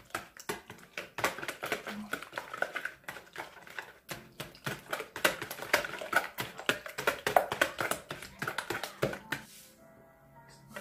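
Wire balloon whisk beating raw eggs in a plastic mixing bowl: a fast, uneven clatter of the wires tapping the bowl, stopping about nine and a half seconds in. Soft music follows near the end.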